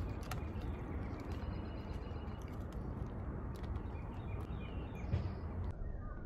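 Outdoor ambience: a steady low rush of background noise with a few faint, short bird chirps and scattered light clicks.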